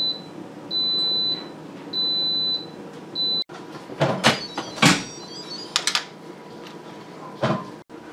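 Instant Pot electric pressure cooker beeping, one long high beep about every second and a quarter, three times. Its keep-warm display shows that cooking has finished. About halfway through come clicks and knocks, the loudest sounds here, as its lid is turned and lifted off, with one more knock near the end.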